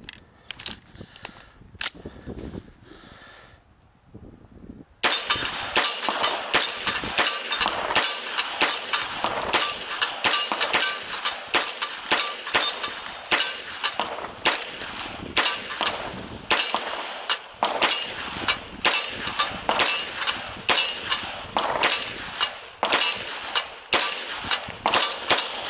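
SIG MPX pistol fired one shot at a time in a long run at about two shots a second, with steel targets clanging when hit. A steady hiss comes in suddenly about five seconds in.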